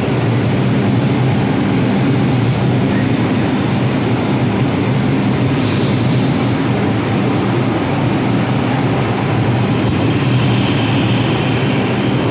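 R142 subway train standing at the platform with a steady low hum over loud station noise. A brief hiss cuts in about six seconds in.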